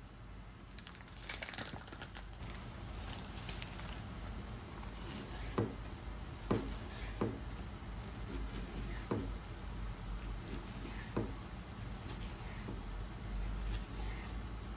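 Paper towel crinkling as a grilled eel fillet is handled on a wooden cutting board. Then a kitchen knife cuts through the eel about five times, each cut a short, sharp stroke ending on the board.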